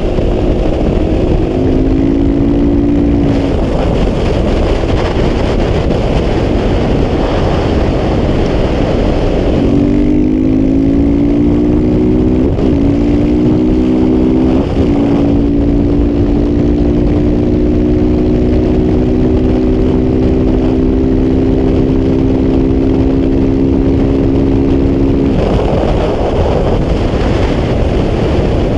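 KTM 690 SMC R supermoto's single-cylinder engine with a Wings aftermarket exhaust, heard from a camera on the bike under heavy wind noise. It pulls with a slowly rising note, with two brief breaks about 12 and 15 seconds in, then drops away about 25 seconds in.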